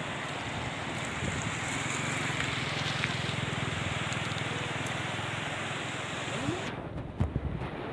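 Steady rushing noise of a flooded river flowing past a breached bund, mixed with wind rumbling on the microphone. Near the end the hiss drops away suddenly and a few low thumps of wind buffeting the microphone follow.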